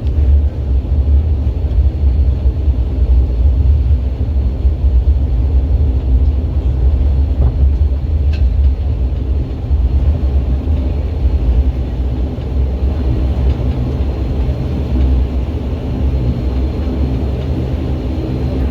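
Steady low rumble of a moving vehicle heard from inside the cabin, unbroken throughout.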